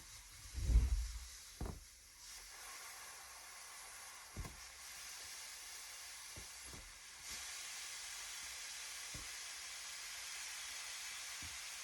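Air hissing steadily out of a balloon as it is let down slowly, the hiss getting louder about two-thirds of the way through. Soft low thumps from handling, the loudest about a second in.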